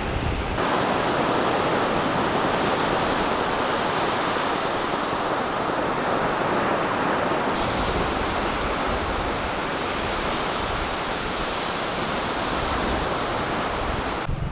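Loud, steady rushing of water, with no rhythm of separate waves. The sound changes abruptly about half a second in and again partway through, and cuts off just before the end.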